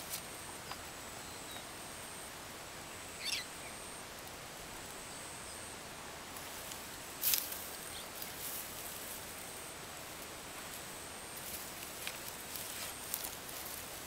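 Hands scrabbling through loose soil and straw mulch, giving soft rustles and scattered crackles over a steady outdoor hiss. The loudest crackle comes about seven seconds in, and more crackles bunch up near the end. A short bird chirp sounds about three seconds in.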